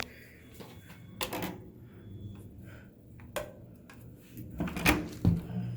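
A few separate sharp clicks and knocks, spread over several seconds, with the last two close together near the end.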